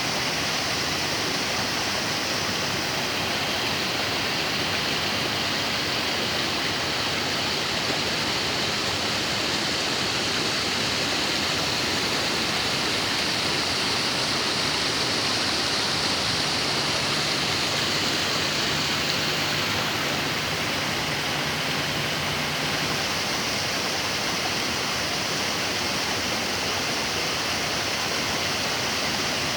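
Waterfall and rapids of a forest stream: falling, rushing water making a steady, even noise. A faint low hum joins it for a few seconds in the middle.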